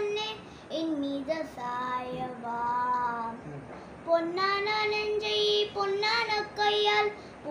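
A boy singing a song solo with no accompaniment, holding long notes, with a short pause for breath about halfway through.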